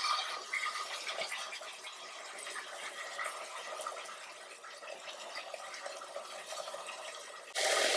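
Chopped onions frying in oil in a pressure cooker, a faint steady sizzle with a few light taps as ground masala paste is scraped in. Near the end the sizzle and the scrape of a spoon stirring get suddenly louder.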